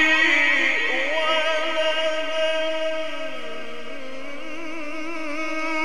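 A male Quran reciter's chanted voice through a sound system with heavy echo. His last drawn-out, ornamented note trails away and fades slowly while he pauses between verses.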